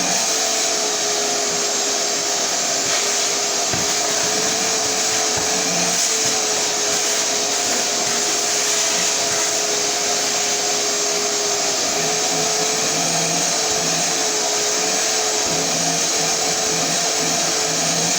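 Shop-Vac wet/dry shop vacuum running steadily: a constant rush of air with a steady whine over it.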